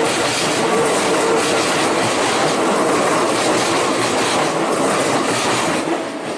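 Keikyu Line electric train passing over a level crossing, its wheels clattering over the rail joints. The noise is loud and steady, then drops off near the end.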